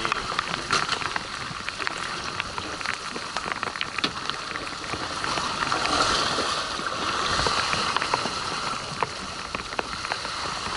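Steady wash of choppy sea water around a boat's stern, peppered with many small ticks of water droplets striking the camera housing.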